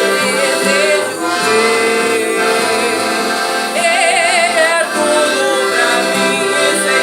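Accordion playing held chords in a traditional style, with a voice singing over it with a wavering vibrato, most clearly about four seconds in.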